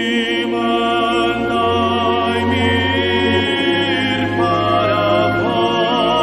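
Background choral music: voices holding long, slow notes with vibrato.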